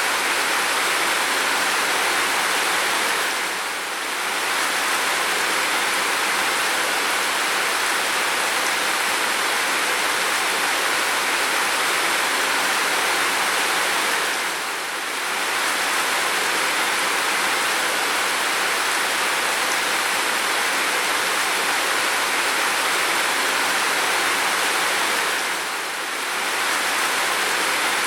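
Steady, dense downpour of heavy rain, an even hiss with no separate drops standing out. The loudness dips briefly three times, about eleven seconds apart.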